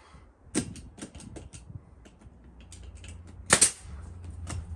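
Pneumatic nail gun firing nails into the door frame: one sharp shot about half a second in, then a louder pair of shots close together about three and a half seconds in, with small clicks and taps between.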